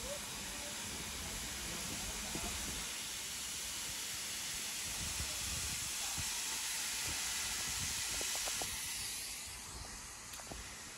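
Great Western tank steam locomotive venting steam in a steady hiss, which eases off about nine seconds in.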